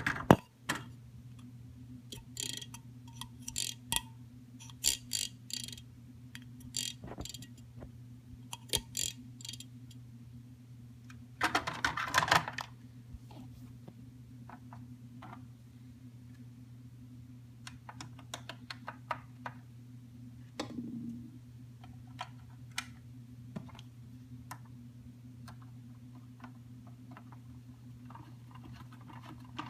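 An electric fan's motor hums steadily, with scattered ticks and clicks over it and a short rattle about twelve seconds in.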